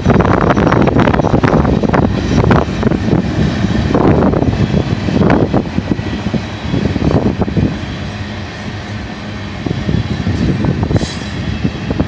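Freight train's covered hopper cars rolling past close by: a steady, loud rumble of steel wheels on rail with repeated sharp clacks, easing a little about two-thirds of the way through before building again.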